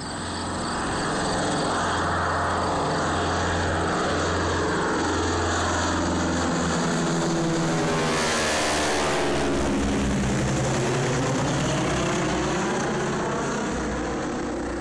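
Aircraft passing low overhead: a loud rushing roar that builds over the first second or two, peaks about eight or nine seconds in, and drops in pitch as it moves away.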